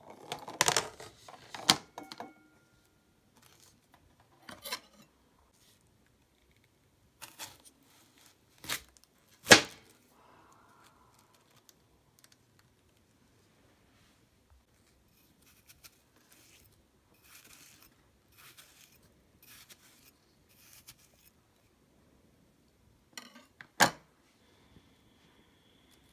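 Kitchen knife and dragon fruit knocking and clicking on a plastic cutting board, a sharp knock every few seconds with the loudest near the start, about a third of the way in and near the end. In between, a run of faint short strokes, about one a second, as the knife scores the fruit's flesh.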